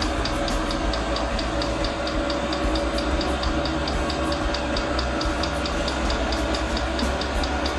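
Portable all-in-one diesel air heater running at full power: a steady burner and blower rumble with a constant whine, and the fuel dosing pump ticking evenly about five times a second.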